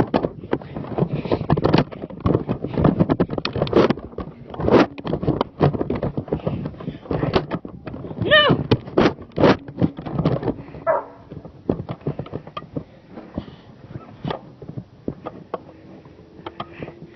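A few short barks from a dog, a couple of them close together a little past the middle, among many quick knocks and thumps.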